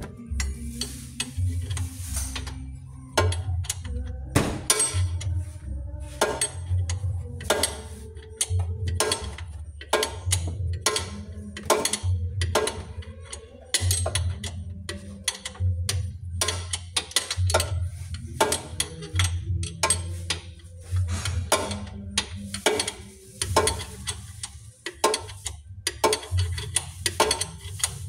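Sharp, irregular metallic clicks and knocks of a 14 mm wrench working the engine-mount bolts, over music with a pulsing bass.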